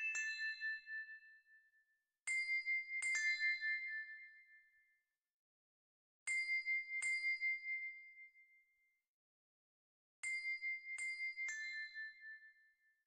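Sparse background music of bell-like chime notes: clusters of two or three struck notes about every four seconds, each ringing out and fading away, with silence between the clusters.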